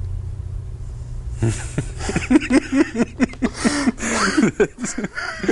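A man's wordless vocal sounds, starting about a second and a half in: a quick run of short, pitched bursts that rise and fall, with breathy gaps between them, over a low steady hum.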